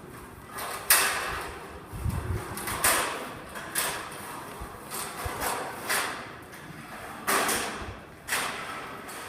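Bell-hoisting gear at work: an irregular string of sharp knocks and scrapes, about one a second, each trailing off briefly, with a dull low thud about two seconds in.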